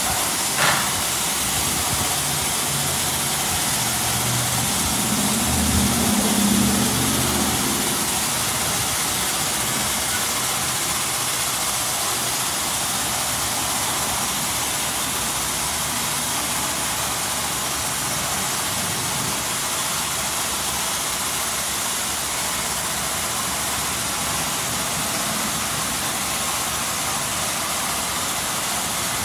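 Ryko SoftGloss Maxx 3 automatic car wash gantry spraying a car, a steady hiss of water jets. A brief sharp noise comes just under a second in, and a low machine hum swells for a couple of seconds about five seconds in.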